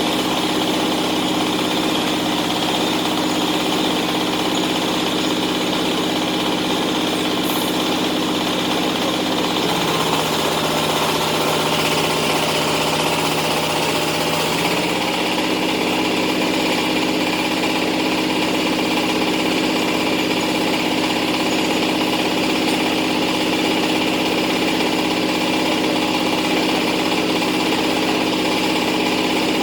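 Engine idling steadily. About a third of the way in its pitch dips slightly for roughly five seconds, then settles back to the same idle.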